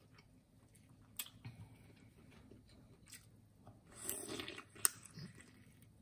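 Close-up eating sounds of biting meat out of a sauced lobster tail: scattered wet clicks and smacks, then a louder bite about four seconds in, followed by a sharp click.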